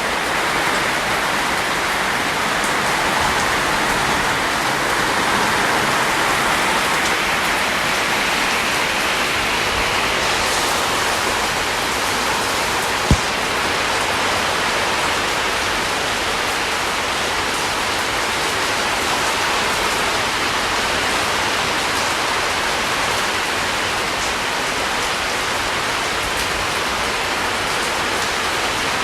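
Steady heavy rain falling, an even dense hiss of drops. Partway through there is a single sharp tap.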